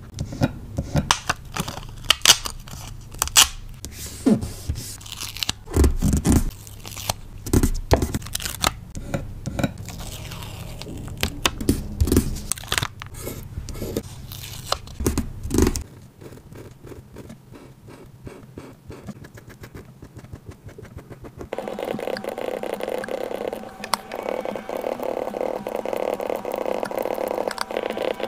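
Close-miked paper and sticker handling for a journal layout: peeling, tearing, scraping and crinkling, with many sharp taps and clicks. About 16 s in it turns quieter, and from about 21 s a steady hum sits under fainter crackling.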